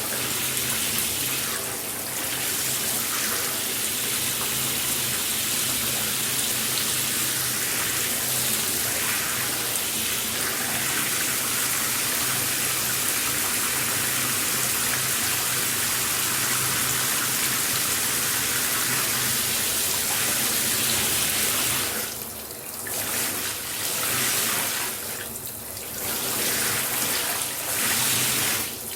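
Running shower water spraying in a steady hiss, dipping briefly in level twice near the end as if the spray were interrupted.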